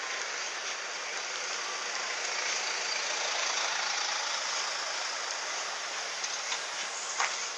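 A car driving slowly past at close range, its engine and tyre noise swelling as it goes by about three and a half seconds in and then fading. A couple of sharp clicks come near the end.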